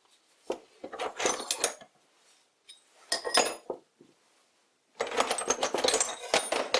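Small metal lathe tooling (tool bits, boring bars, drill bits) clinking and rattling against each other as they are rummaged through and lifted out of a box, in three bursts of jingling with a short metallic ring.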